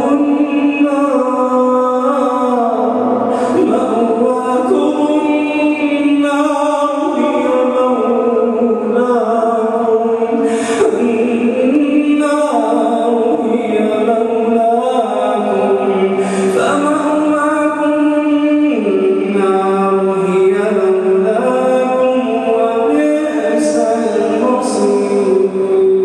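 A man reciting the Quran aloud in a melodic, chanted style, holding long notes that glide and step between pitches in drawn-out phrases.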